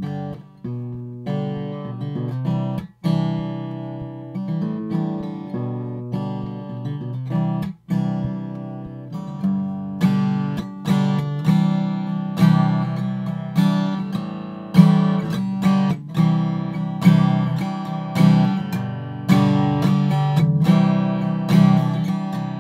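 Acoustic guitar strumming chords in a steady rhythm, with accented strums about once a second and playing that grows louder about ten seconds in. It is a close studio microphone recording with the low end cut by an 80 Hz high-pass filter.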